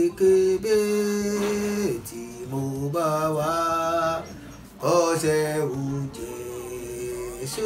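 A man singing a Yoruba hymn solo, in slow, long-held notes with short breaks between phrases.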